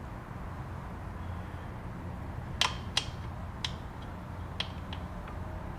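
A few light, sharp metallic clicks and taps as small metal parts of an Elgin 301 sewing machine's zigzag mechanism, the sector slide and its arm, are fitted into place. They fall about halfway through, over a steady low hum.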